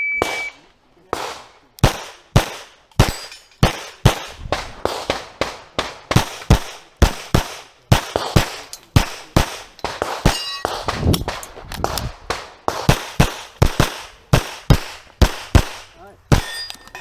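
Shot timer beeps once, then a course of rapid handgun fire follows: dozens of pistol shots, many in quick pairs, over about sixteen seconds. Some shots are followed by the ringing clang of steel targets being hit.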